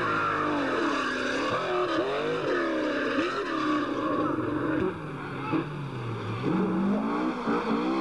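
Rally car engines running at high revs. The pitch climbs and drops sharply again and again through gear changes and lifts off the throttle. The sound briefly drops in level about five seconds in, then picks up again as revs climb.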